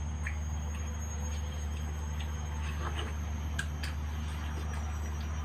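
Faint wet bites and chewing on slices of raw watermelon, a few soft clicks scattered over a steady low background hum.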